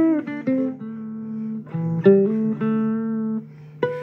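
Guitar playing a slow blues phrase: single plucked notes, several bent down in pitch, over a steady low note.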